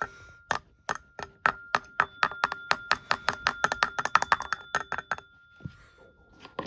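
An old Edwards fire alarm bell being struck over and over, each strike ringing at the same metallic pitch. The strikes start about two a second, quicken into a fast, uneven ringing, and stop about five seconds in. A short knock comes near the end.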